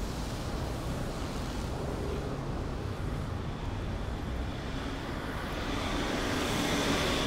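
Street traffic: a steady hum of vehicles, with one passing vehicle growing louder near the end.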